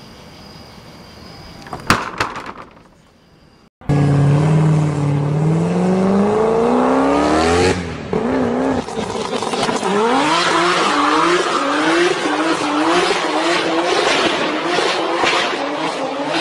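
A car engine revving up in one long rising pitch for about four seconds, then revving up and down repeatedly, which begins suddenly after a sharp click.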